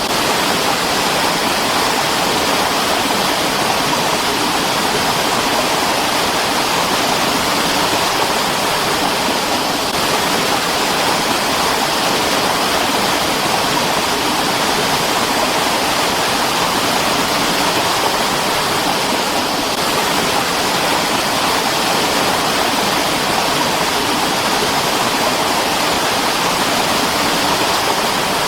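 Mountain stream water rushing and splashing over rocks in a steady, dense, unbroken flow.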